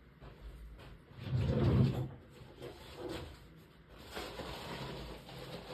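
Muffled, distant rummaging: a thump a little over a second in, then fainter knocks and shuffling, like a drawer being searched.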